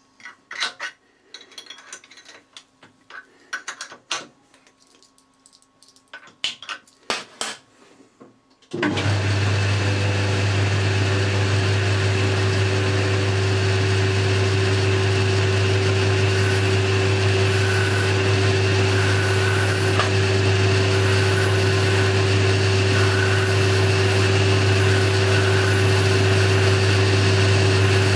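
Scattered light metallic clicks and knocks of work at the stopped lathe. About nine seconds in, the Boxford lathe's motor and spindle start up suddenly and run with a steady, even hum.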